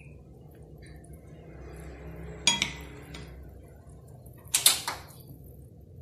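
Kitchen utensils clattering against a wok and stovetop: a short burst of sharp knocks with a brief metallic ring about two and a half seconds in, then a second burst of several quick knocks near the five-second mark, over a steady low background.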